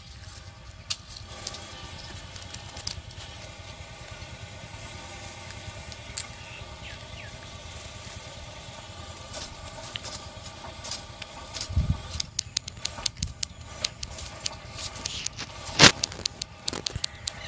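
A kitchen knife chops carrot and then cucumber on a plastic cutting board, making scattered sharp knocks of the blade on the board. The knocks are sparse in the middle and come quicker near the end, where the sharpest one falls. A faint steady hum runs underneath.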